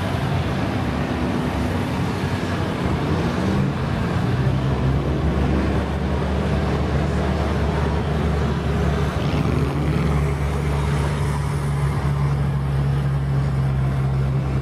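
ARGO six-wheel amphibious ATV's engine running hard as the machine churns through deep mud and water, with mud and water splashing; the engine revs up about four seconds in and then holds steady.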